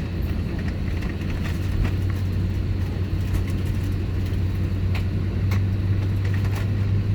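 Steady low hum of an Airbus A321-231 cabin before engine start, an even drone with rumble beneath it that grows slightly stronger near the end, with a few faint clicks.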